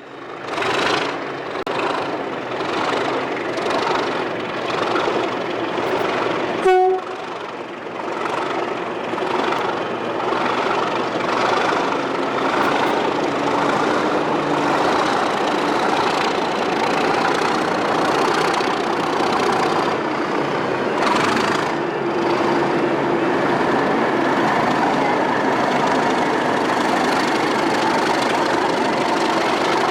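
Class 37 diesel-hauled train going by, the wheels knocking in a regular rhythm over rail joints. There is a short horn blast about seven seconds in, then the locomotive's engine running steadily.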